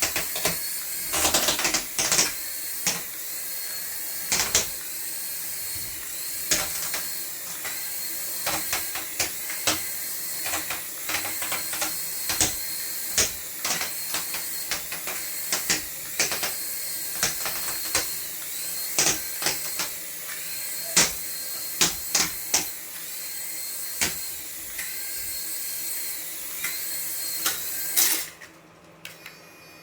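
A small motor whirring steadily with many irregular clicks and rattles, cutting off suddenly near the end.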